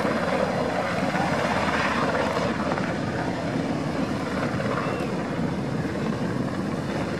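HM Coastguard Sikorsky S-92 search-and-rescue helicopter flying low overhead, its rotors giving a steady, rapid chop.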